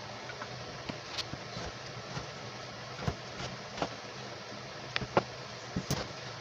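Kitchen knife cutting raw potato slices into fry strips on a plastic cutting board: irregular knocks of the blade against the board, several close together in the second half. A steady low hum runs underneath.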